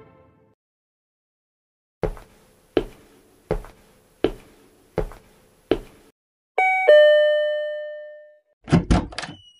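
Six slow knocks on a door, evenly spaced a little under a second apart, followed by a two-tone doorbell chime, a ding-dong whose second, lower tone rings out for over a second. Near the end comes a quick burst of several thuds and clicks.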